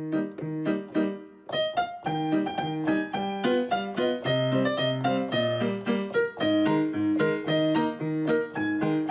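Piano music: a quick series of struck notes over lower chords.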